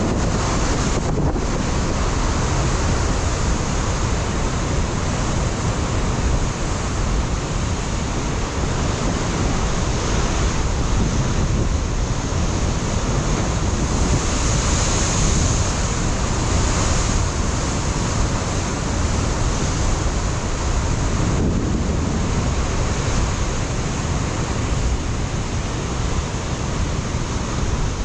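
Ocean surf breaking and washing against a rocky shore, a continuous rushing roar with gentle swells, mixed with strong wind buffeting the microphone.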